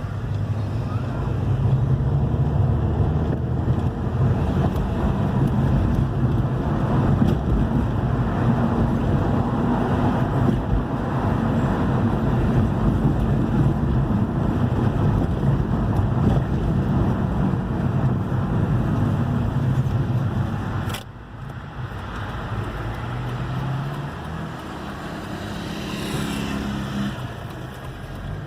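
Hyundai i30's 2.0 petrol engine running with road noise as the car is driven. About 21 seconds in the sound drops abruptly, then carries on as a quieter, steadier engine hum.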